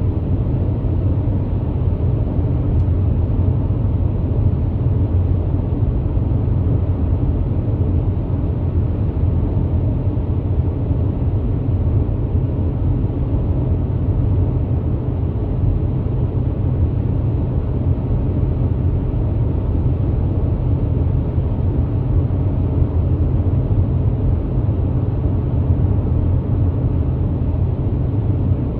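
Steady low road rumble of a car driving at highway speed, tyre and engine noise heard from inside the cabin.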